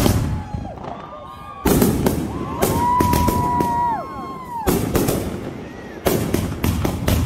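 Aerial fireworks going off: a sharp bang at the start, then more loud bursts about two seconds in, near five seconds and a quick cluster around six seconds. Several long whistling tones rise, hold and fall between the bangs during the first four and a half seconds.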